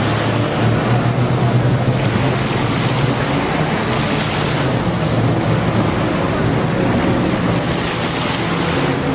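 Jet ski running steadily at speed: a constant low engine drone under the rush of water spray, with wind buffeting the microphone.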